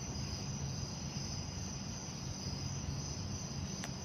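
Crickets chirring steadily in a continuous high-pitched drone, over a low steady rumble.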